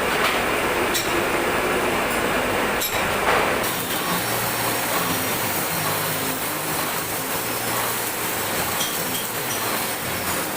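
Sharp metallic taps and clinks of tools on metal parts over a steady workshop noise. About three and a half seconds in the high hiss drops away and a low hum remains.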